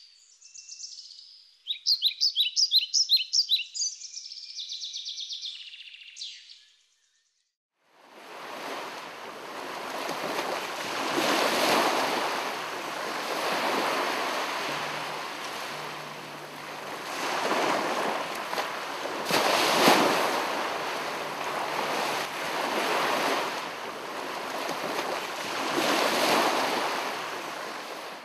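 Birds singing, quick high chirps and trills, for about seven seconds; after a second of silence, ocean waves wash in, swelling and falling every few seconds.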